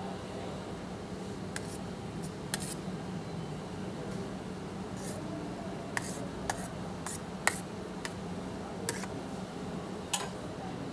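Metal spatula clicking and scraping against an iron sizzler plate while topping is piled onto fries: about ten sharp clicks at irregular intervals, the loudest about seven and a half seconds in, over a steady low hum.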